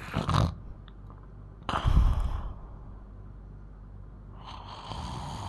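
A 12-year-old girl snoring loudly in her sleep. The tail of one snore comes at the start, a loud rasping snore about two seconds in, and a quieter, longer breath near the end.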